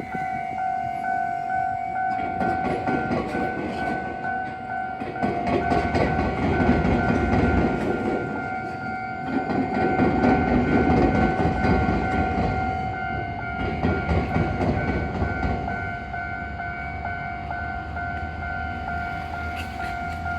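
Japanese level-crossing warning bell ringing in a steady repeating pattern while a train runs over the crossing. Its wheels clatter over the rail joints and the diamond crossing, loudest in two surges in the middle, then the train noise fades and the bell keeps ringing.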